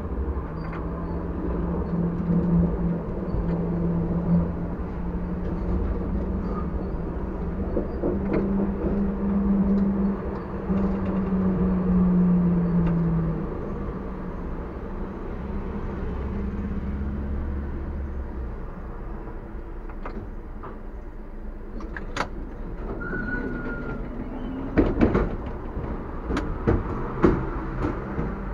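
TW6000 tram running along the track with a steady low motor drone and rumble, then slowing and coming to a stop. Near the end there are several sharp clicks and knocks.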